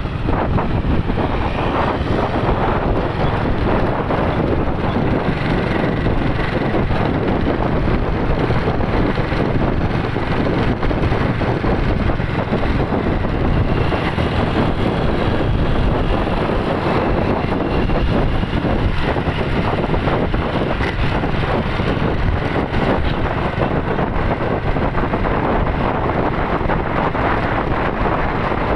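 Steady wind rushing over the microphone of a moving vehicle, with road and running noise underneath.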